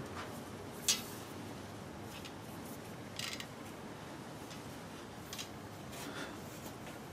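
Soft copper tubing being uncoiled and bent by hand: quiet handling with a sharp click about a second in, a short scrape about three seconds in, and a few light ticks of metal later.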